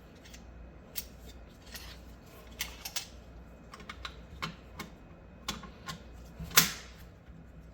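Small steel parts of an SKS rifle clicking and tapping against each other as they are fitted back together, in scattered light clicks with one louder click about six and a half seconds in.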